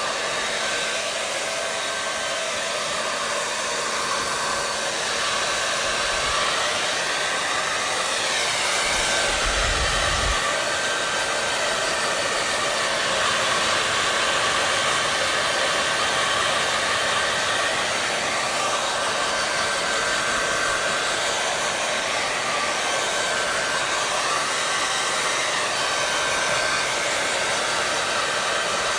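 Hair dryer running continuously: a steady rush of blown air over the hum of its motor, with a faint high whine. A brief low bump comes about ten seconds in.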